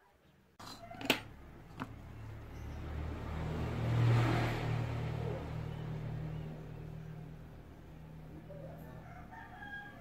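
A motor vehicle passing by: a low engine hum swells to its loudest about four seconds in, then slowly fades. Two sharp clicks sound in the first two seconds.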